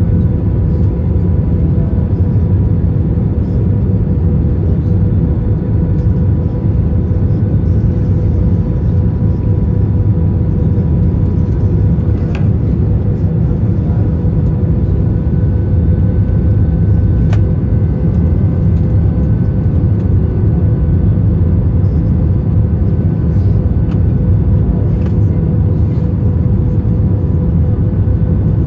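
Steady cabin roar inside an Airbus A321 on final approach with its flaps extended: engine and rushing-air noise heard from a seat over the wing, deep and even, with a faint steady hum on top.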